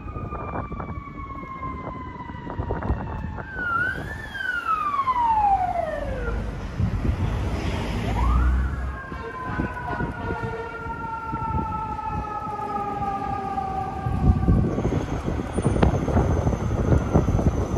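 FDNY fire engine sirens, electronic Q2B-style sirens winding down in long falling sweeps: one falls through the first six seconds with a quick rise near four seconds, and another winds up sharply about eight seconds in, then slowly winds down. Engine and traffic noise runs beneath and gets heavier near the end.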